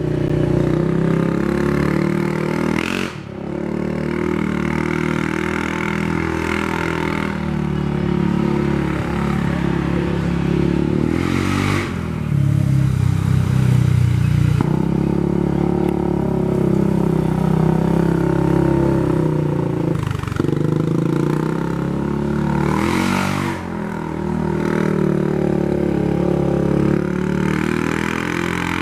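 Rebuilt Polaris Ace 570 single-cylinder engine running steadily, its revs dropping and climbing back a few times.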